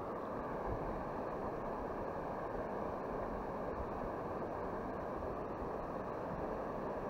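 Steady rushing noise of wind and river water, even, with no separate sounds standing out.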